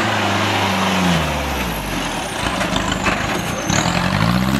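Off-road jeep engine revving hard under load. The revs drop after about a second and climb again near the end, over a steady rush of noise.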